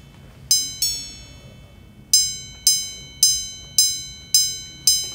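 Minute repeater of a Jaeger-LeCoultre Master Grand Tradition Grand Complication chiming the time, its trebuchet hammers striking bright, high-pitched gongs. A quick double strike comes about half a second in, then a run of single strikes about two a second, each ringing and fading away.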